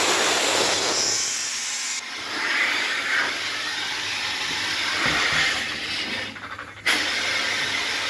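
Compressed air hissing steadily for about the first two seconds, then a lower, uneven workshop noise that drops away briefly near the end before resuming.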